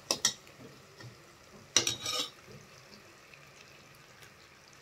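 A perforated metal skimmer ladle clicks and scrapes against an aluminium kadai, a couple of times at the start and again about two seconds in. Under it is the faint steady bubbling of sugar syrup boiling toward one-string consistency.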